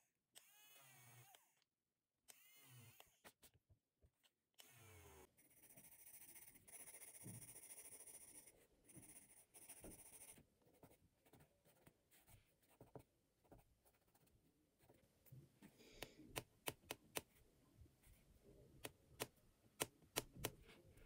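Short whirring bursts from a battery-powered eraser pen, its pitch rising as each burst starts. Then a pencil scratches steadily across sketchbook paper for a few seconds. Near the end comes a run of sharp ticks and clicks.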